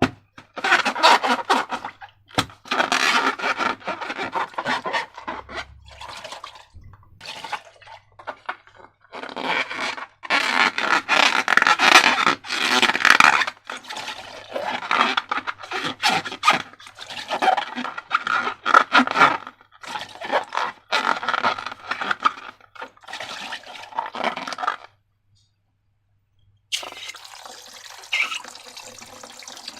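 Wet squelching and scraping of slime being squeezed and mixed, in irregular bursts; it breaks off about 25 seconds in. After a second or two of silence, a steady rush of water from a tap starts.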